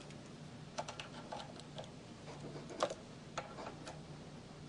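Scattered metal clicks and clinks of a pulley on a small belt sander being moved by hand to a new position, the loudest a little under three seconds in. A faint steady hum runs underneath.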